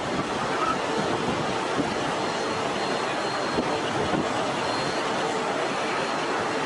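Engines of two farm tractors running steadily under load as they push a heap of sand uphill with front blades.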